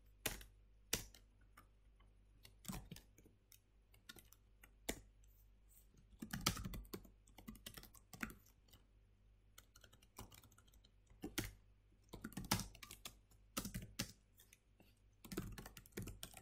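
Faint typing on a computer keyboard: scattered single keystrokes and short, irregular bursts of key clicks.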